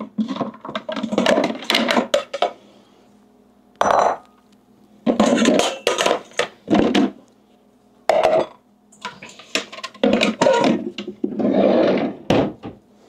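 Metal pots, pans and kitchenware clattering and clanking as they are rummaged through in a lower kitchen drawer. The clatter comes in about five bursts with short pauses between them.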